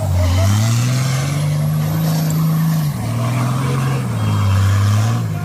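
Off-road competition four-wheel-drive truck's engine revving hard under load: the pitch climbs over the first second, holds high, drops back about halfway through and sags further near the end.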